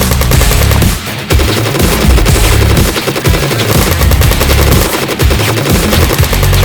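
Rapid bursts of automatic gunfire sound effects, firing almost without pause with a short break about a second in, over a loud driving music track.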